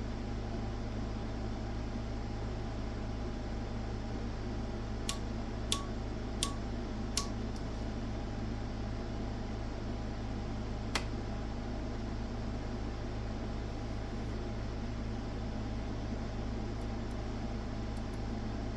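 Steady electrical hum and fan-like whir from running oscilloscope bench equipment. Four sharp clicks come about 0.7 s apart from about five to seven seconds in, and one more near eleven seconds.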